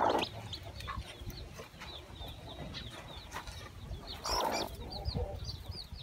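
Newly hatched chicks peeping from under a broody hen on her nest: a steady run of short, high, falling cheeps, a few each second. Two short harsh bursts come over them, one at the start and one about four seconds in.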